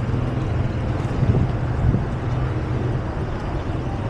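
City street traffic: a steady low rumble of car engines and tyres, swelling briefly a little over a second in.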